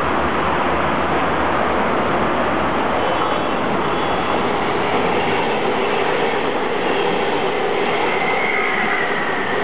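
Regional push-pull train of red DB n-coaches with an electric locomotive pushing at the rear, passing close by on a curve with a steady running noise of wheels on track. A faint high wheel squeal comes in near the end.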